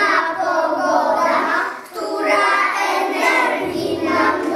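A group of young children singing a song together in Polish, unison voices held on long notes, with a brief breath between phrases about two seconds in.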